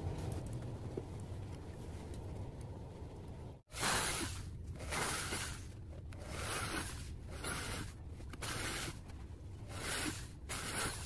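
A small PVC disc rubbed by hand along its edge with a low, even scraping, then, from about four seconds in, a cordless drill boring small holes through the PVC disc in several short bursts of about half a second each.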